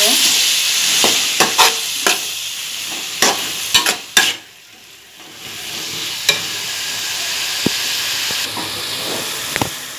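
Chopped tomatoes, onion and carrot sizzling in oil in a steel kadai while a metal spatula stirs and scrapes them, knocking sharply against the pan several times in the first four seconds. The sizzle drops away briefly near the middle, then comes back steady with a few lighter taps.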